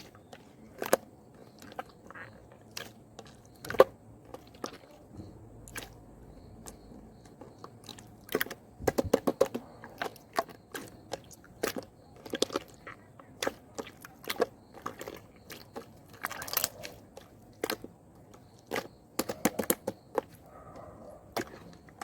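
Slime being squeezed and worked by hand, making irregular sharp clicks and pops, with quick runs of pops about nine seconds in and again near the end.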